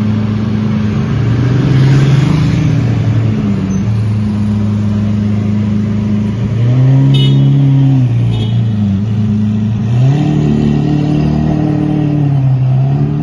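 Lamborghini Aventador's V12 engine running at low road speed as the car pulls away, with the revs rising and falling several times in short blips.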